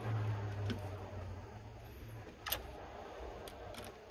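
Small sharp clicks of metal battery-terminal parts being handled and fitted, the loudest about two and a half seconds in, over a low hum that fades away within the first two seconds.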